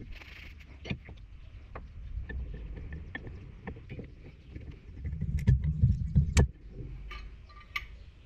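Steel sheets clicking and knocking against each other and the bench as they are stacked by hand, then a loud rough rattling handling noise that ends in a sharp metallic snap as locking pliers are clamped shut on the stack.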